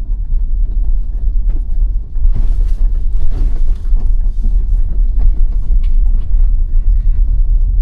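Steady low road and tyre rumble inside the cabin of a 2021 Tesla Model Y on the move, with no engine note since it is electric, and a brief rustling hiss about two and a half seconds in.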